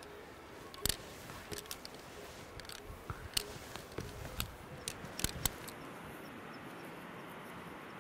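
Climbing hardware clinking: a string of scattered sharp metallic clicks and taps from carabiners and quickdraws over a faint steady hiss, stopping about six seconds in.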